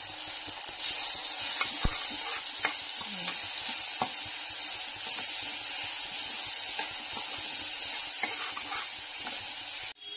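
Chopped onions and tomatoes frying in oil in a steel pan, sizzling steadily, while a slotted metal spoon stirs the masala and scrapes and clicks against the pan now and then as the turmeric and chilli powder are mixed in.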